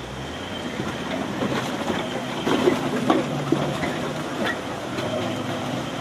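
A vehicle engine running, its low hum swelling and fading, with scattered knocks and clatter over a steady background noise.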